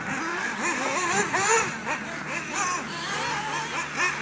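1/8-scale RC buggies racing, their small engines revving up and down in overlapping rising and falling whines as they go around the track, over a steady low hum.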